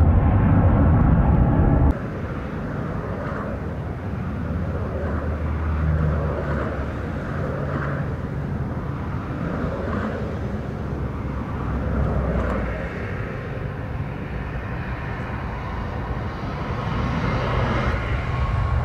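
A louder jet-engine sound cuts off abruptly about two seconds in. It gives way to the steady, quieter engine noise of a Boeing 777F freighter's twin GE90 turbofans, with a low hum that swells a few times and grows louder near the end.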